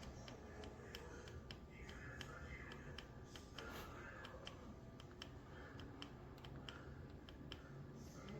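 Quiet room tone with faint, light clicks and ticks, roughly two a second.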